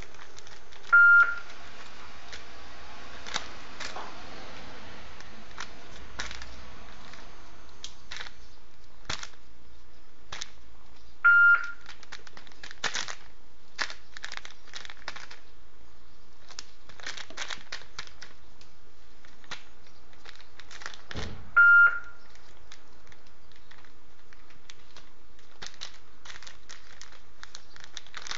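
Scattered crackling and clicking of a woven seagrass basket as a kitten moves about in it. A short, steady, high beep sounds three times, about ten seconds apart, louder than the crackling.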